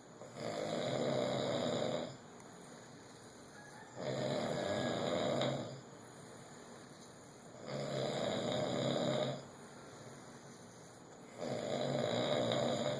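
Snoring in a slow, even rhythm: four loud snores, each about a second and a half long, coming nearly every four seconds with quieter breathing gaps between.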